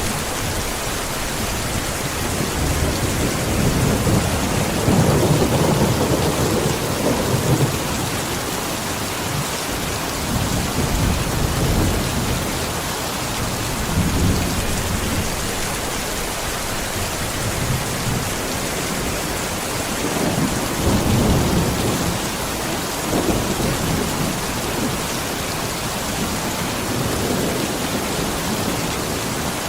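Steady heavy rain, with low rolls of thunder swelling and fading several times, the strongest about five seconds in and again about twenty seconds in.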